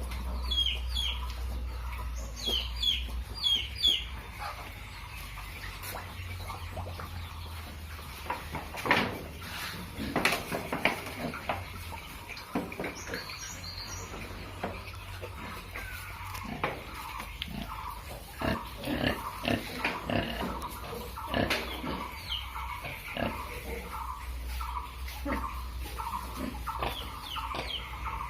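Pigs grunting on a farm, in clusters of short calls about a third of the way in and again about two-thirds through. Short high chirps come near the start, and a run of evenly repeated calls fills the second half.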